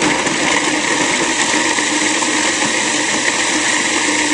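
Cuisinart Pro Classic food processor switched on abruptly and running steadily, its blade chopping chunks of raw cauliflower and parsnip that bounce around in the bowl.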